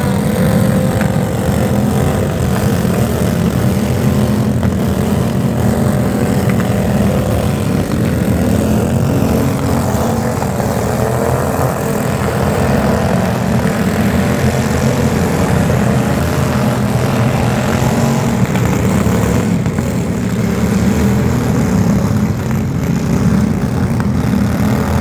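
A loud engine running steadily, a constant low drone with a slightly wavering pitch.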